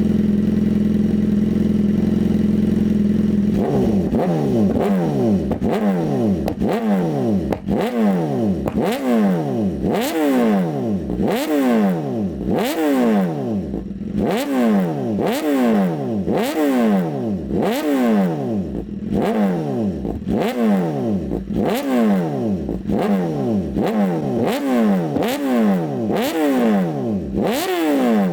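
BMW S 1000 RR HP4's inline-four engine held at a steady raised speed for a few seconds, then revved again and again with short throttle blips, each rising quickly and falling back, about once a second.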